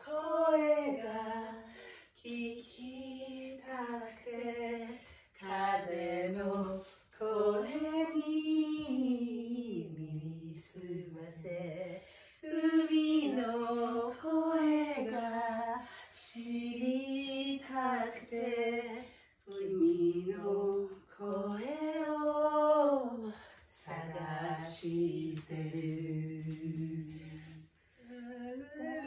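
Women singing a slow song without accompaniment, in phrases of a few seconds with long held notes and short breaks for breath between them.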